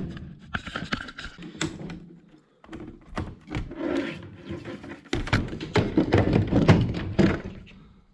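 A run of thunks and clicks as things are handled and set down on a small table while plugs and chargers are plugged in, busiest in the second half.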